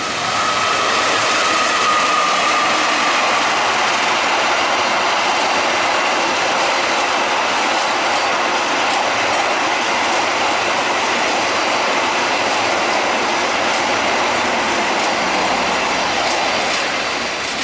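Train passing at speed close by: a steady loud rush of wheels on rail with clicking over the rail joints, and a faint high whine over the first few seconds. The noise eases off near the end as the last cars go by.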